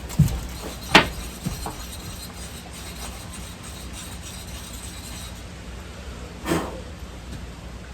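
A few sharp knocks and clicks of hand tools and metal parts being handled during ATV rear-end assembly: four close together in the first two seconds and one more near the end, over a steady low hum.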